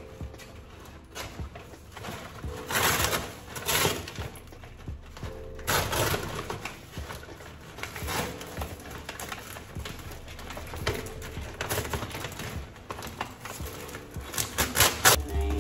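Kraft paper wrapping rustling and crinkling as it is pulled and torn off a tall potted plant, in several loud bursts, with a quick flurry of crackles near the end.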